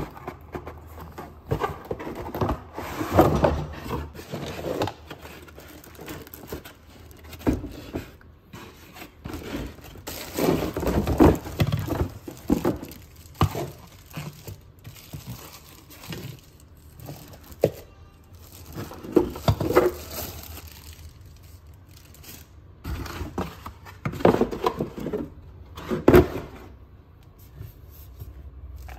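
Unpacking noises: a molded paper-pulp packaging insert scraping and knocking against the cardboard box, plastic wrapping crinkling, and the plastic and metal parts of a Magic Bullet blender set being handled and set down on a table, in irregular bursts with sharp clicks.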